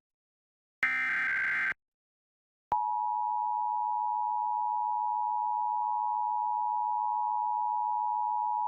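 Emergency Alert System broadcast tones: the last of the three SAME digital header bursts, a buzzy data warble about a second long, then after a second of silence a click and the steady two-tone EAS attention signal (853 and 960 Hz together), which begins nearly three seconds in and holds to the end, announcing a required monthly test.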